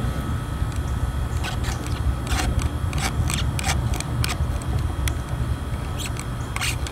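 Razor blade sawing through a length of rubber fuel hose: a run of short, crisp cutting strokes at uneven intervals, over a steady low background rumble.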